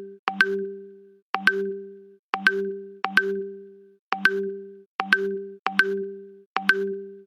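WhatsApp Web incoming-call ringtone: a short two-note figure with a sharp click on each strike and low ringing tones, repeating about once a second, each repeat dying away quickly before the next.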